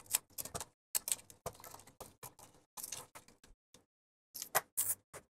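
Nylon zip tie being worked and pulled tight around a cable, irregular small clicks of its ratchet and of handling, with a louder cluster of clicks near the end.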